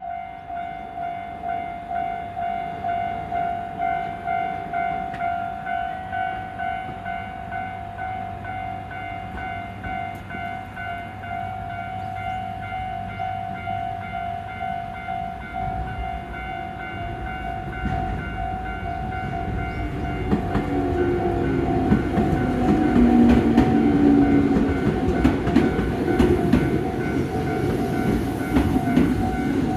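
Japanese level-crossing alarm on the Tsurumi Line ringing its electronic warning bell, an evenly repeating ding. From about sixteen seconds in, a train comes through the crossing, and the rumble and clatter of its wheels grow louder under the bell.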